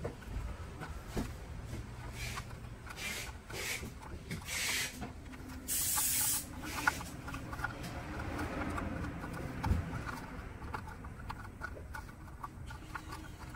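A red rubber strip is pressed and slid along the rim of a clear plastic rowing-machine water tank, making scattered rubbing and scraping noises with small clicks. Several short hissing swipes come in the first half, and a louder one comes about six seconds in.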